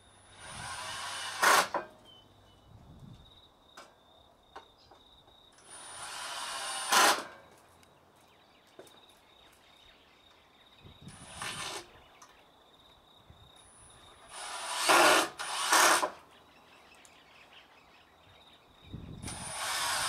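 Cordless drill driving screws through galvanised steel ant caps into timber posts, in about five short runs. Each run lasts a second or two, swells and stops sharply as the screw seats.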